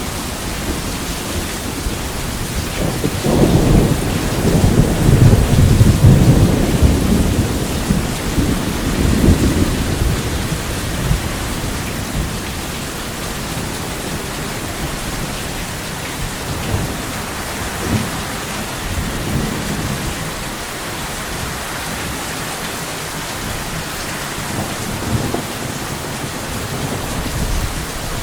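Steady rain hissing, with a long roll of thunder that swells about three seconds in, peaks a few seconds later and rumbles away over several seconds. Fainter rumbles return later on.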